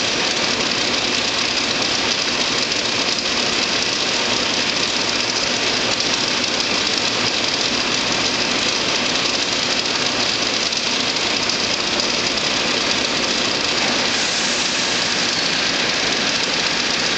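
Bullard vertical turret lathe running: a steady, unchanging machine noise with a strong hiss.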